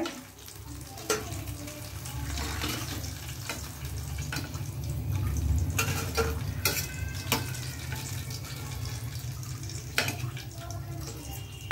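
Breaded fish fingers deep-frying in hot oil in a kadai, a steady sizzle, with several sharp clinks of a perforated steel skimmer against the pan and a steel plate as the fried pieces are lifted out.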